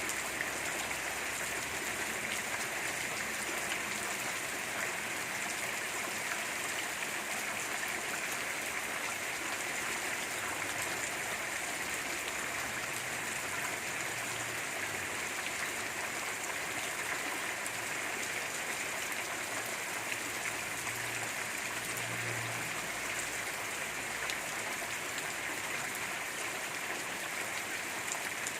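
Steady rain falling: an even hiss of many drops that keeps the same level throughout.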